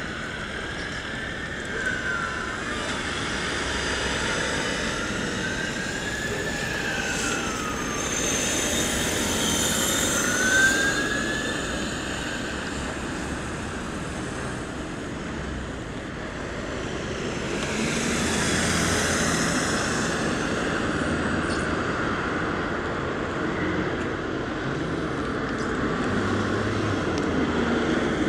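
A fire engine's siren wailing slowly up and down over steady road traffic, three long rising and falling sweeps, until it stops about ten seconds in. Cars go by, and near the end the fire engine's own engine comes up the road.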